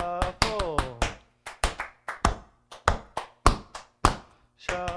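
Tap shoes on a wooden floor doing shuffles and toe drops: quick metal taps, often in pairs, in a steady rhythm. A person's voice sounds briefly, falling in pitch, at the start and again near the end.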